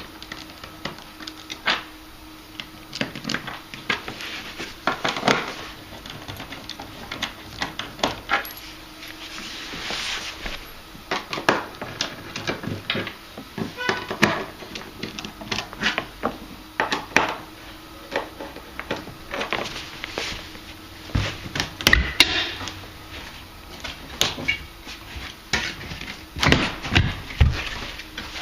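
Irregular clicks, knocks and scrapes of screws being backed out by hand and a hot tub's cabinet door panel being handled and lifted off, with heavier knocks in the last few seconds.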